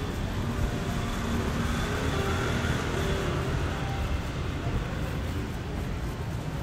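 Busy city street ambience: a steady wash of traffic noise.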